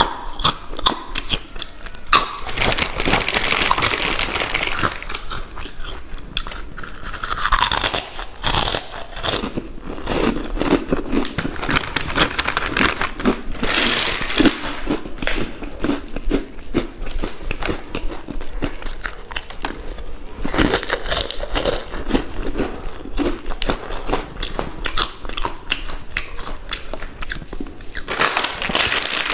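Close-miked crunching and chewing of crisp Balaji snacks, with a dense run of crisp bites and crunches.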